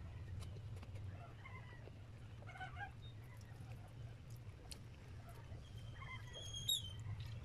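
Soft mouth clicks and smacks of chewing spaghetti over a steady low hum, with a few short high-pitched chirps scattered through, the loudest one about three-quarters of the way in.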